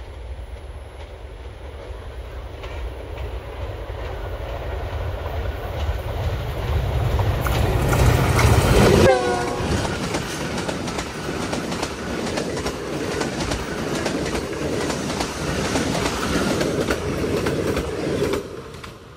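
Passenger train hauled by a GEU-20 diesel-electric locomotive approaching and passing close by: the diesel rumble grows louder, and a short horn blast drops in pitch as the locomotive goes past about halfway through. The coaches then rush past with wheel clatter until the last one clears shortly before the end.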